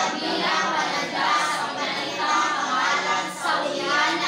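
A group of voices reading aloud together in unison, a chant-like recitation in a classroom with a slight room echo.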